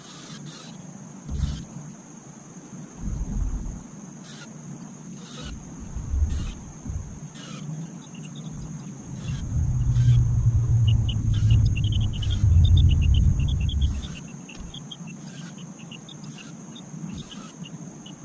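Cordless drill driving a screw into a lattice panel, running for about four seconds in the middle with a fast ticking over it. Shorter knocks come before it, and a thin steady high tone runs underneath.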